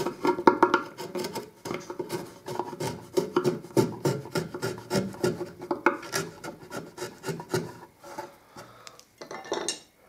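Wood chisel paring along the edge of a wooden board to round it over, in a quick run of short scraping strokes. The strokes thin out about eight seconds in, and a few more come near the end.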